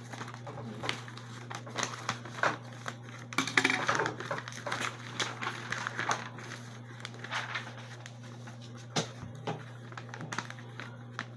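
A sheet of paper rustling and crinkling as it is handled and folded, in irregular crackles that are busiest about three and a half to four and a half seconds in.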